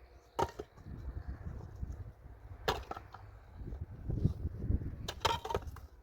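Several sharp knocks: one about half a second in, another near three seconds, and a quick cluster near the end, over a low rumble.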